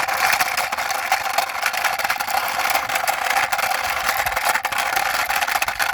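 Toy army helicopter pushed along by hand, giving a steady whirring rattle.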